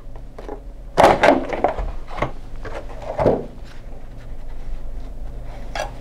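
A tray of server memory modules being handled, set down on the table and a module lifted out of it: a few separate knocks and clunks, about a second in, near two seconds, around three seconds and near the end.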